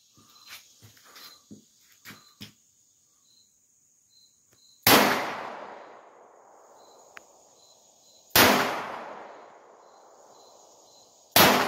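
Three handgun shots a few seconds apart, each a sharp crack with a long echoing decay, the first about five seconds in and the last near the end. Before them there are a few light clicks of the gun being handled, with insects buzzing faintly throughout.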